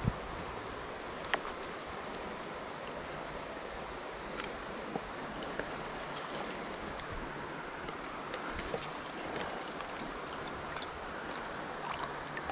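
Shallow, rocky stream water running steadily, with a few scattered sharp clicks, the sharpest right at the start and another about a second and a half in.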